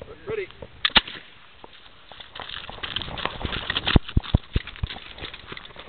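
Black-powder rifles on a blank-firing drill: a single sharp crack about a second in, then a quick run of clicks and knocks as the rifles are handled, loudest near four seconds in.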